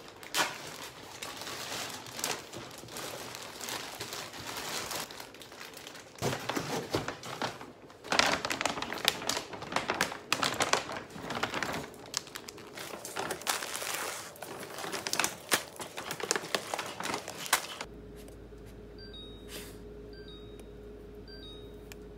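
Plastic courier mailer and packaging crinkling and rustling with sharp crackles as a package is torn open and handled. Near the end the rustling stops abruptly and a refrigerator's door-open alarm gives a few short high beeps over a steady hum.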